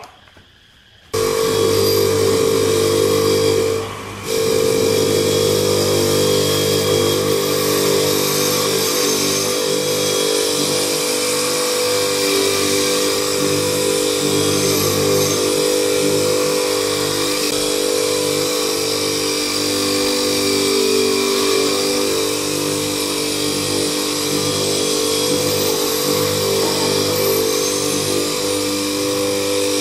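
Small bench grinder running steadily, with a metal microphone tube held against its spinning wheel. It starts suddenly about a second in, drops out briefly around four seconds, then runs on with a constant hum.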